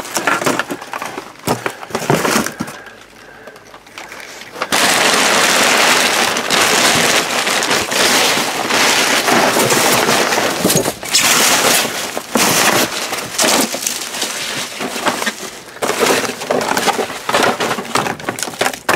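Rummaging through a dumpster of store waste: plastic bags and cellophane wrappers rustling and crinkling, with glass bottles and tin cans clinking and knocking. It is sparser for the first few seconds, then from about five seconds in the rustling turns loud and continuous.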